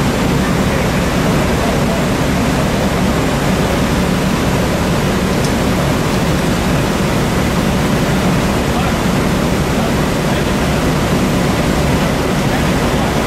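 Steady, loud rushing noise of a working fireground: fire engines running beside a large burning building, with no single sound standing out.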